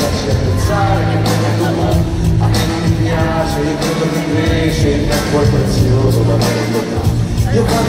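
Live pop-rock band playing loudly in an arena, with drums and a heavy bass line, recorded on a phone from among the audience.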